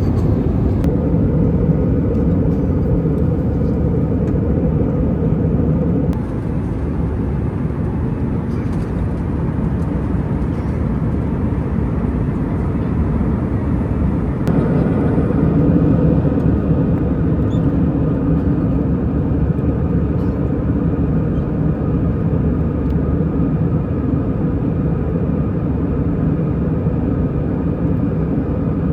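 Steady engine drone and rushing air heard inside the cabin of an Airbus A320. The level dips a little about six seconds in, then rises again around fifteen seconds, where a faint higher whine joins the drone.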